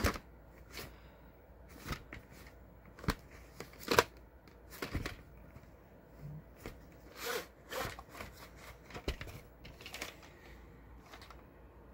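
Handling a VHS cassette and its cardboard sleeve: paper and card rustling and sliding, with a few sharp plastic clicks and taps as the tape and its paper insert come out.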